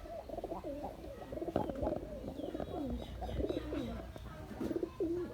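Several domestic pigeons cooing together in overlapping, low, rolling calls, with a couple of sharp clicks about one and a half seconds in.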